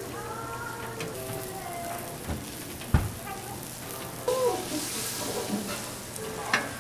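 Food sizzling on a flat griddle at a street toast stall, with a sharp knock about three seconds in. The sizzle grows louder and hissier a little past the middle.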